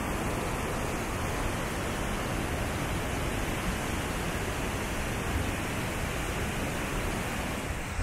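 Glacial meltwater river rushing over boulders: a steady, even noise of white water.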